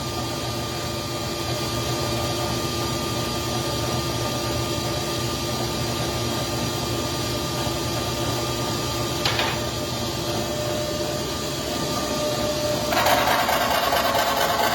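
Tire truing machine running steadily with a motor hum and whine. About 13 seconds in, a louder rasping noise starts, as a cutter shaving rubber off the tread would make.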